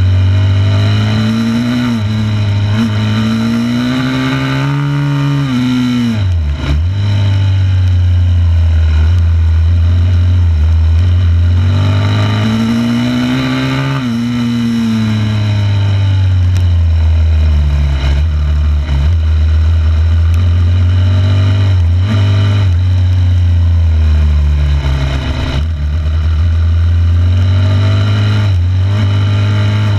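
A 2006 Yamaha YZ250F's 250 cc four-stroke single-cylinder engine running under way, its note climbing and falling again and again with the throttle. It dips sharply and briefly about six seconds in.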